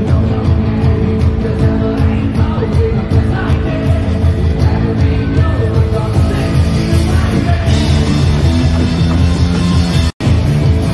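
Rock band playing loud, with electric guitar, drums and a singer. The sound cuts out for an instant near the end.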